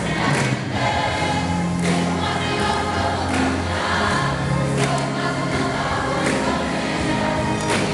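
A youth choir singing a Brazilian gospel song in unison, backed by instruments with bass notes and occasional percussion hits.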